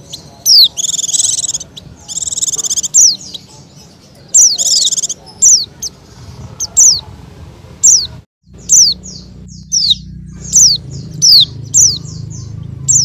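A bird or birds chirping: a quick series of short, sharply falling high-pitched chirps, with three buzzy trills in the first five seconds. The sound cuts out completely for a moment about eight seconds in.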